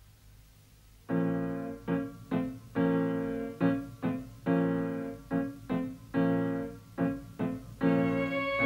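Piano music begins about a second in, after near silence: a rhythmic run of struck chords, each dying away. A violin comes in near the end.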